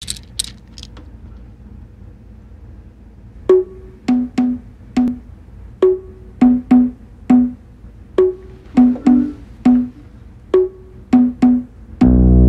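Hand drum played with bare palms, a sparse rhythm of single and double strokes on two pitches, high and low, starting about three seconds in. A few quick cabasa rasps at the very start, and near the end a full band with bass guitar comes in.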